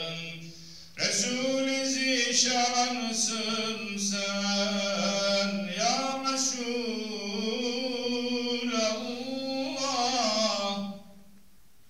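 A man's unaccompanied voice chanting a Turkish mevlid recitation. A long held note dies away at the start, and about a second in a new melismatic phrase begins, its pitch bending up and down through ornamented turns before it ends about eleven seconds in.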